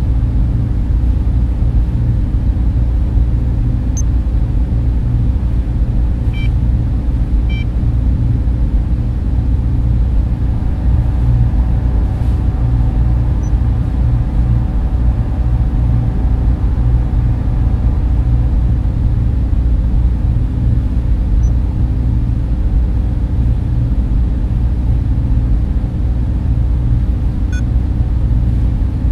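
Server-room ambience: a steady low drone of server machines and ventilation fans, with a few short, faint high electronic beeps scattered through it.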